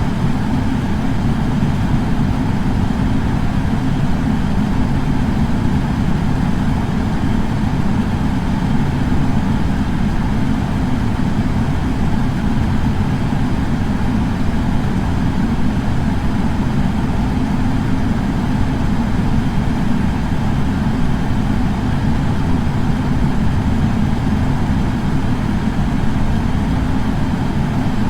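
Air purifier fan running steadily: an even, low whooshing hum at a constant level.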